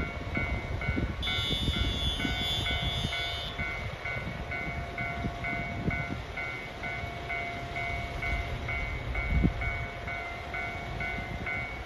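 KiHa 261 series diesel multiple unit pulling slowly into a station platform, its diesel engines rumbling, with a brief high squeal of the brakes a second or so in and a single thump near the end. A repeating electronic bell rings about twice a second throughout.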